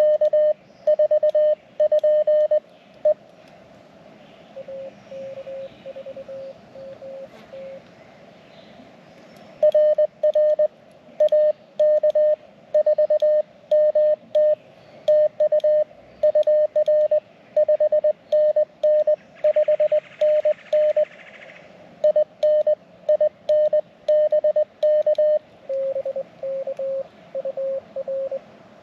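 Morse code (CW) tones from an amateur radio transceiver: a louder, slightly higher tone keyed in long runs of dots and dashes, alternating with a fainter, slightly lower-pitched tone over a low background hiss.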